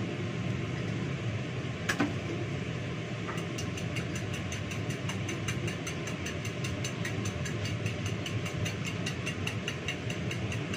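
A metal spoon beating eggs in a ceramic bowl, clinking quickly and evenly from about three seconds in, over a steady low mechanical hum. One sharp knock comes about two seconds in.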